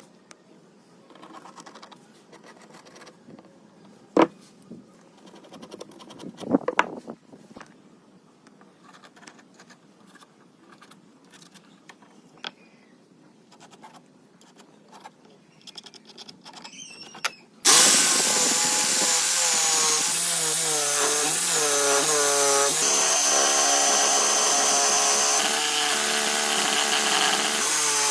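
Quiet handling with a few sharp knocks, then an electric power tool starts suddenly about two-thirds of the way in and runs loud and steady, its motor pitch stepping up and down.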